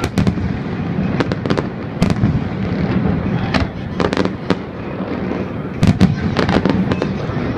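Aerial fireworks going off: sharp bangs and crackles in quick clusters over a continuous rumble of further explosions.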